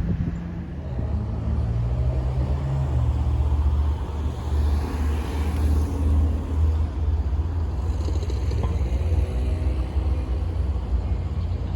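Deep, steady rumble of an approaching Long Island Rail Road train, swelling over the first couple of seconds and then holding.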